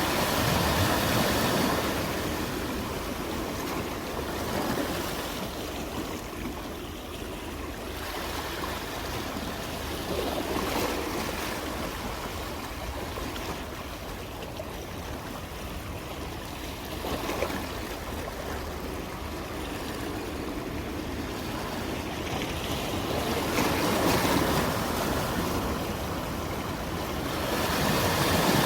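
Sea waves breaking and washing in, the surf swelling and easing several times.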